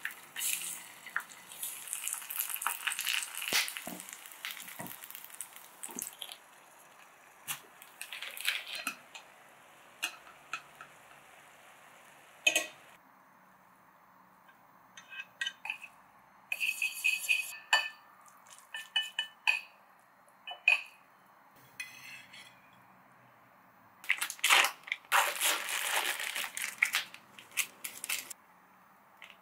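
Kitchen handling sounds: dense crackling for the first several seconds, then scattered knocks and clinks of utensils on ceramic plates and pans, some ringing briefly. Near the end a plastic instant-ramen packet crinkles in the hands.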